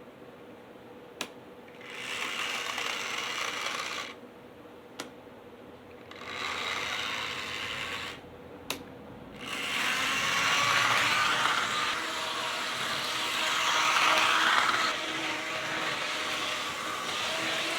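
Burlington GP20 model locomotive running on the track: its motor and freshly cleaned and lubricated gear drive whir in two short runs of about two seconds each, then run continuously from about halfway through. A sharp click comes just before each run.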